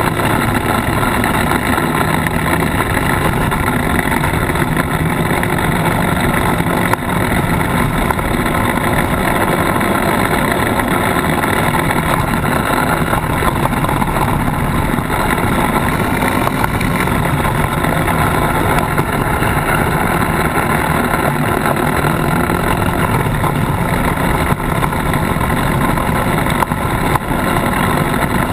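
Polaris RZR side-by-side engine running steadily as it drives a dirt and gravel track, picked up by a camera mounted on its bumper, the engine mixed into a constant wash of driving noise.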